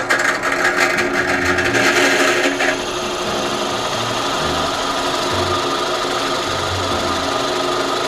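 Bench drill press running with a 1-inch paddle bit boring into a red oak ball. Rapid rasping chatter of the bit cutting for the first few seconds, then a steadier cutting and motor sound.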